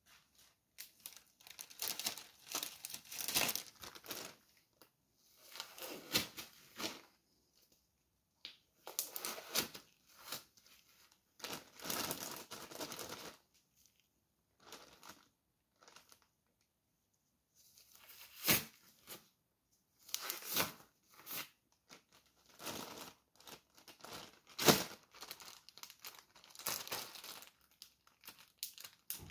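Clear plastic bag crinkling and rustling in irregular bursts with short pauses between them as it is handled.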